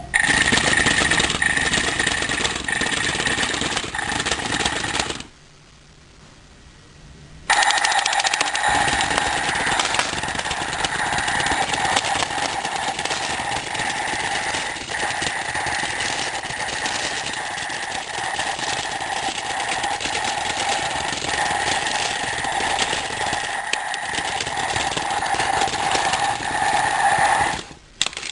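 Bomb-style alarm clock sounding a loud, harsh buzzing alarm. It cuts out for about two seconds some five seconds in, then goes on for about twenty seconds more before stopping near the end.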